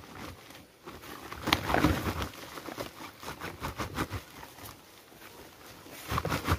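Woven plastic sacks being handled: rustling, crinkling and flapping as one is shaken out and dropped and another is tied shut. It is loudest in a burst about a second and a half in, and again near the end.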